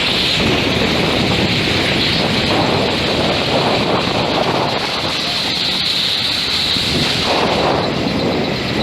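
Steady loud noise of heavy machinery running, with a hissing high band over a shifting rumble.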